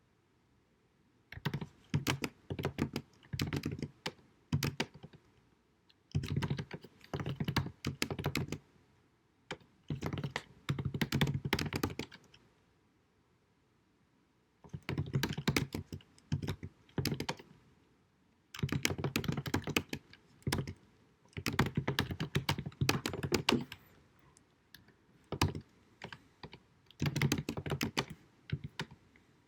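Typing on a computer keyboard in quick bursts of keystrokes a second or few long, broken by short pauses, with a longer pause about halfway through. The recording is deliberately low quality.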